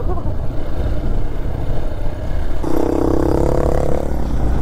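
Hero XPulse 200 4V motorcycle on the move: a steady low engine and wind rumble. A held, steady pitched tone lasts about a second and a half, starting a little past the middle.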